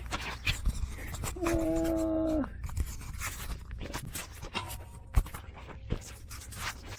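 Hand tools and metal parts clinking and scraping during work on a car's starter, with a brief steady whine lasting about a second, about a second and a half in.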